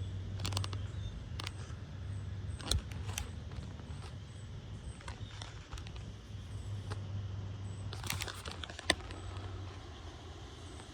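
Strong wind blowing, heard as a low rumble, with scattered sharp clicks and taps and one louder click near the end.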